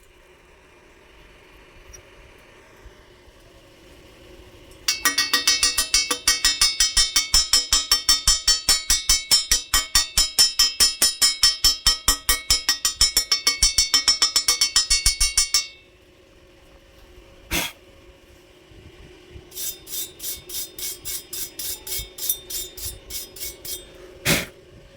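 Steel being struck rapidly with a hammer, about four to five ringing blows a second for some ten seconds, then a single knock, a shorter and softer run of blows, and a last knock.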